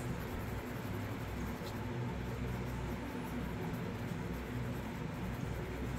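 Faint scraping of a wooden stir stick mixing mica pigment into epoxy resin in a small paper cup, over a steady low room hum.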